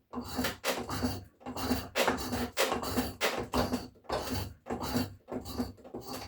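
Hand tool scraping along a wooden axe handle in repeated back-and-forth strokes, about two a second, as the handle is shaped.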